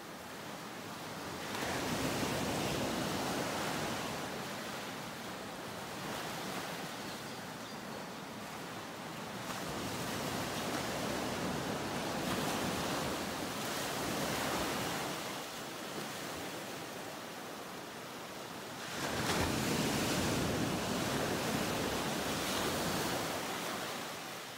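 Ocean waves washing and breaking in slow surges, swelling and easing about three times.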